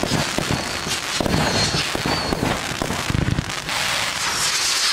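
A 48-shot consumer fireworks fan battery (Albert Feuerwerk 'Extreme Terror') firing in rapid succession: launch thumps and bursting shots follow one another closely. Near the end a hissing burst stands out.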